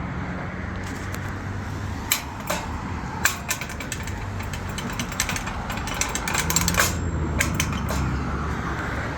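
Road traffic with a steady low engine hum from idling vehicles, and a scattering of sharp clicks: a few about two to four seconds in and a few more near the end.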